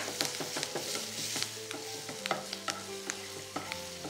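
Wooden spatula stirring a masala of ginger, garlic, green chillies and curry leaves in hot oil in a non-stick pan, with the oil sizzling. The spatula knocks and scrapes against the pan in many short clicks.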